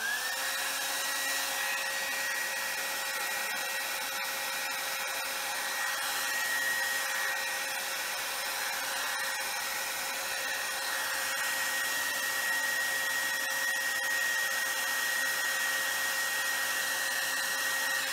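Handheld travel hair dryer switching on and running steadily on heat, blowing hot air onto heat-shrink tubing. It makes a steady rush of air over a motor whine that rises briefly as it spins up, then holds one pitch.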